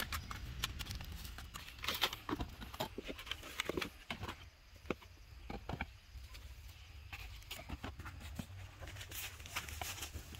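Discarded phones, cameras and other electronics being picked up and handled over leaf-littered ground and set into a cardboard box: scattered, irregular plastic and metal clicks and knocks, busiest in the first few seconds, over a low steady rumble.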